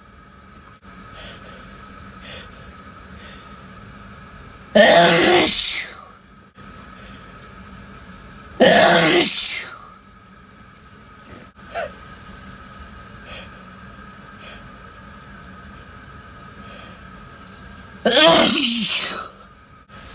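A person sneezing loudly three times, each sneeze about a second long and several seconds apart, with a steady background noise between them.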